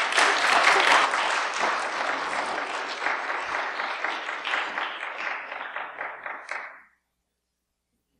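Church congregation applauding, loudest in the first second and easing off, stopping about seven seconds in.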